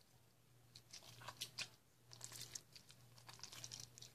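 Borax-activated glitter glue slime squished and kneaded in the hands: faint sticky clicking and crackling in three short bouts.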